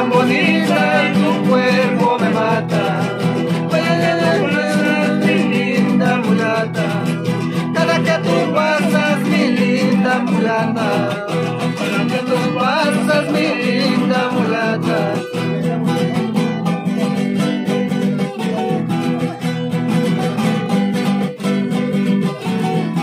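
Two nylon-string acoustic guitars playing a song together, plucked and strummed without a break.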